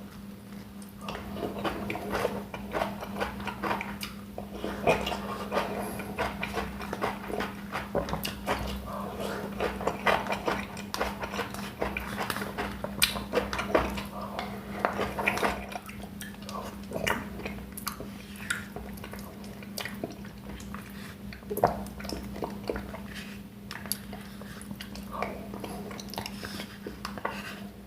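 Close-up eating sounds: dense crisp bites and chewing, thinning out about halfway through, with occasional clinks on a plate. A steady low hum runs underneath.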